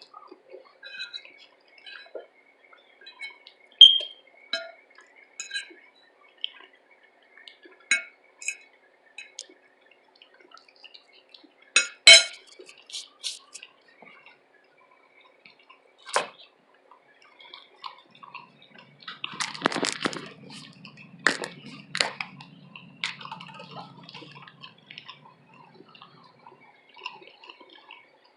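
Eating sounds: scattered clinks of a utensil against a dish and small wet mouth clicks, with a louder clatter about twelve seconds in. A longer stretch of steady noise follows about twenty seconds in.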